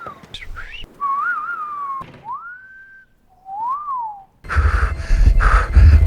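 A man whistling several short sliding phrases: a wavering phrase, then a rising glide, then a note that rises and falls. About four and a half seconds in, a loud, noisy rumble cuts in.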